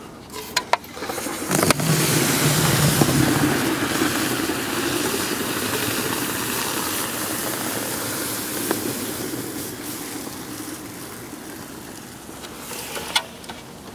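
Liquid air pouring from a dewar into a plastic bucket and boiling off hard on contact: a rushing hiss with a low rumble that starts about two seconds in, is loudest at first, and slowly fades as the pour goes on.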